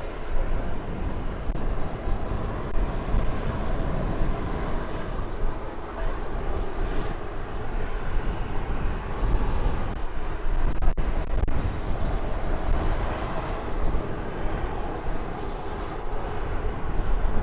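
Gusty wind buffeting the microphone with a steady low rumble, over the even noise of aircraft engines running at low power on the ground.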